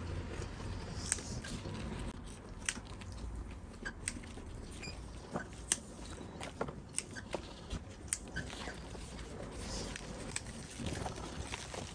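Bonsai scissors snipping the shoots and leaves of a privet in a hard pruning: a string of short, sharp snips at irregular intervals, about one every second or so.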